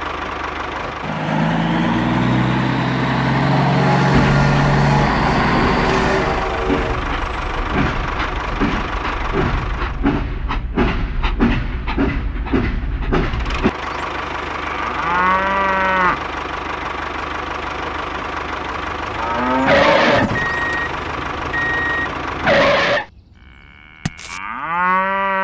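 Cow mooing several times in the second half, the last moo the loudest. Before that there is a steady low rumble with fast rhythmic clacking, like a train running on its rails.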